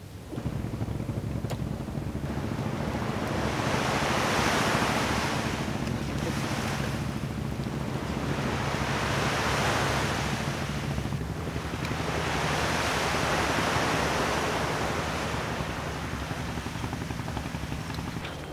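Sea surf breaking on a beach, the wash swelling and falling back three times, about every four to five seconds.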